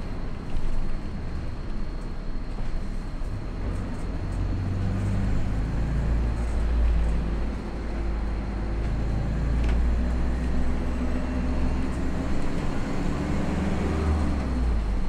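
Engine and road noise heard inside a moving vehicle: a steady low rumble, with the engine note climbing in pitch near the end.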